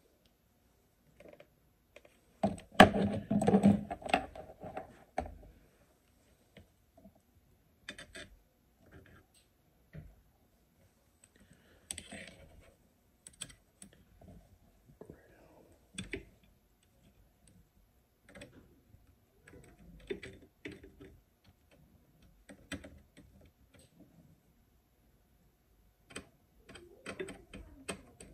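Scattered clicks and knocks of tools and parts being handled at a workbench, with a louder cluster of rattling knocks about three seconds in.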